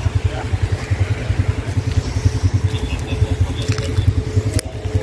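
All-terrain vehicle engines idling or running slowly, a steady low pulsing drone with a thin constant hum over it.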